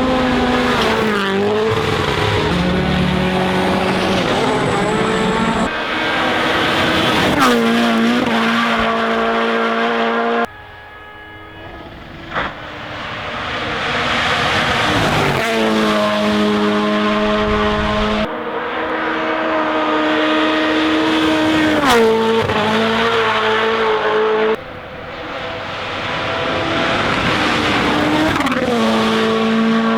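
WRC Rally1 cars' turbocharged four-cylinder engines at full throttle, revving hard and dropping in pitch at each gear change, in short clips that cut abruptly from car to car. Partway through, the sound drops away to a quieter stretch as a car is heard approaching before the engine noise builds again.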